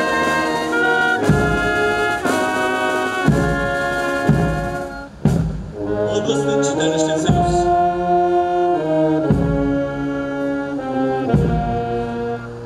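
Brass band playing a march: sustained trumpet and trombone chords over a drum beat about once a second. The music breaks off briefly about five seconds in, then starts again with a drum and cymbal stroke.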